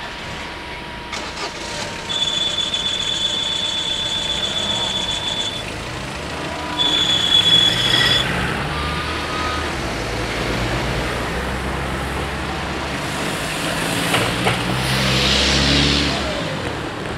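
Cars driving over the level crossing one after another, with engine and tyre noise swelling as each passes. A steady high-pitched squeal sounds from about two to five and a half seconds in and again briefly around seven to eight seconds.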